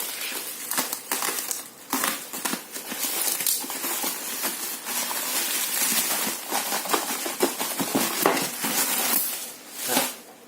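Parcel packaging crinkling and crackling as it is handled and torn open by hand, with a steady run of small clicks and rustles.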